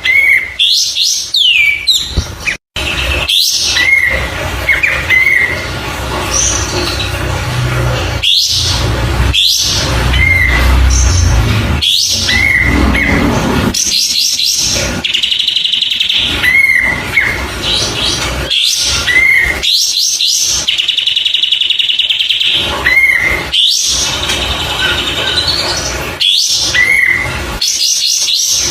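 A kapas tembak songbird singing loud, rapid song: short upturned whistled notes repeating every second or two, broken by fast high trills twice in the middle.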